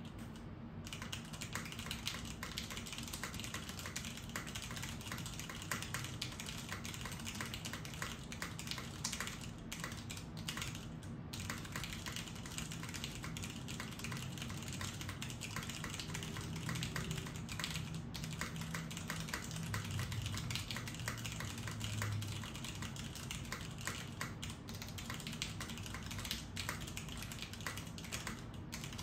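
Fast continuous typing on a Salamander TKL mechanical keyboard fitted with unlubricated stock Cherry MX Brown tactile switches, broken in over five years, and original Cherry POM keycaps, in an undampened sandwich-mount case. The key clicks start just under a second in and run at a quick, uneven rate, with one brief pause near the middle.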